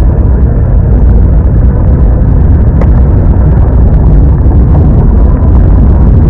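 Loud, steady low rumble of a car on the move: road and wind noise.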